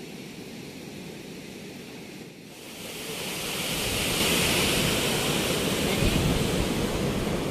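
Wind blowing across the microphone: a steady rushing hiss with irregular low buffeting, growing much louder about two and a half seconds in.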